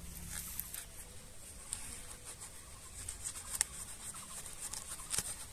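Kitchen knife cutting through a large watermelon's rind: faint scraping and crackling, with a few sharp clicks as the blade works through.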